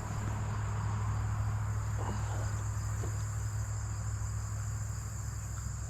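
Insects trilling steadily in a high, even tone over a low steady hum, with a couple of faint knocks about two and three seconds in.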